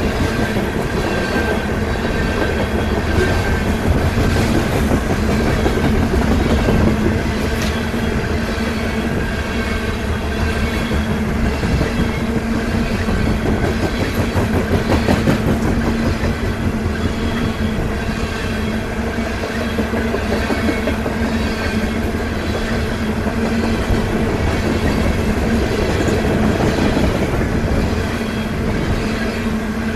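Coal hopper cars of a freight train rolling past: a steady rumble with the clickety-clack of steel wheels on the rails.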